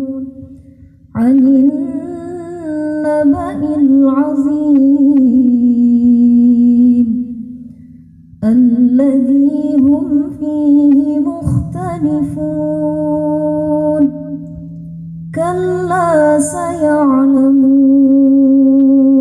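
A woman reciting the Qur'an in melodic murottal style, unaccompanied. She chants in long phrases with sustained, ornamented notes, broken by short pauses about every six seconds.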